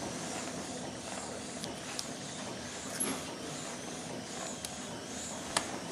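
Steady hiss of running operating-room equipment, with a faint wavering high whistle and a few small clicks.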